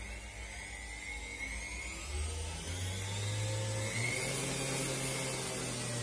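Washing-machine motor driving a homemade wood lathe, speeding up with a rising whine from about two seconds in, then running steadily at a constant pitch from about four seconds in.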